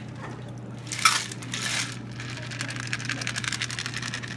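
Ice rattling and clinking inside a stainless steel cocktail shaker as the drink is poured off into plastic cups. It begins with a sharp clink about a second in, followed by a dense run of small rattles.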